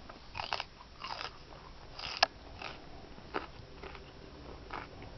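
Hermann's tortoise biting and chewing pale leafy greens: about six irregular crisp crunches, the loudest a sharp crack about two seconds in.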